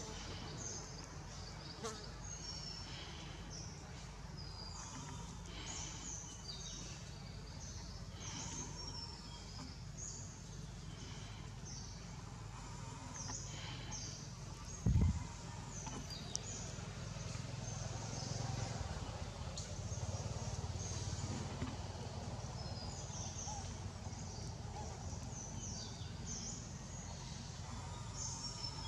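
Forest ambience: many short, high-pitched chirps scattered throughout over a low, steady rumble, with one brief dull thump about halfway through.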